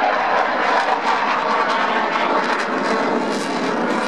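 Eurofighter Typhoon's twin Eurojet EJ200 turbofans during a display pass: loud, steady jet engine noise.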